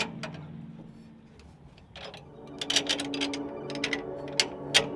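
Metal clinks and clicks of a U-bolt and sway bar mounting bracket being fitted around a truck's rear axle tube. The clicks come in a quick cluster starting about two seconds in.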